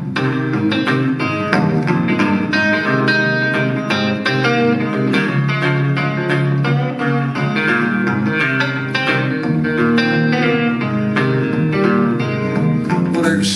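Solo guitar instrumental break: quick picked lead lines and chords on a single-cutaway electric guitar, with no singing.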